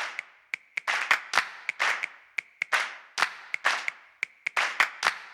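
Footsteps crunching on a gravel road, about two steps a second, with sharp clicks of stones between the crunches.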